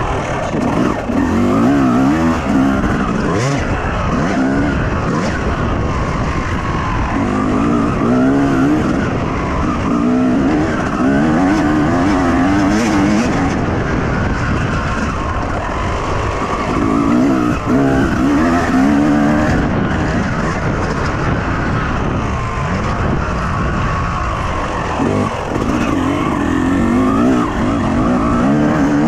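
Yamaha YZ250's single-cylinder two-stroke engine revving hard and easing off, over and over, as the motocross bike is ridden round the track, the pitch climbing and dropping every few seconds.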